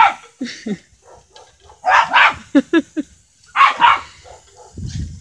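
Small dog barking excitedly at the spray from a garden hose: a string of sharp barks, with a few quick high yips about two and a half seconds in.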